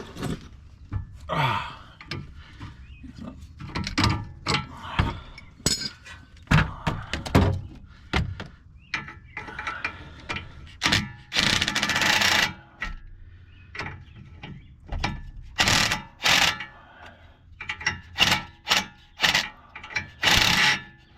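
Irregular metal clanks, knocks and short scraping stretches from a pipe wrench working a car's tie rod adjuster to set the front toe.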